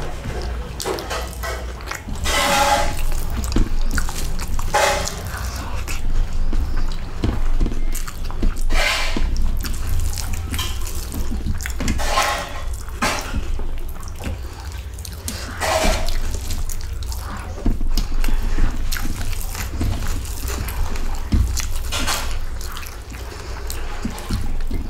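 Close-up wet eating sounds: a mouthful of rice and fish curry chewed with lip smacks, and fingers squishing rice into the gravy on a steel plate. The sounds come as separate bursts every few seconds.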